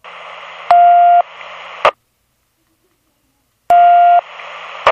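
Police radio scanner receiving two short voiceless transmissions. Each is a burst of static hiss with a half-second steady beep in it, and each cuts off with a squelch click. There are about two seconds of dead silence between them.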